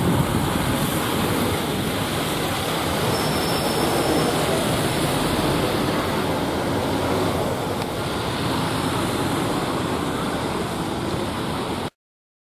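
Wind rumbling on the microphone over the steady noise of buses moving past; it cuts off suddenly near the end.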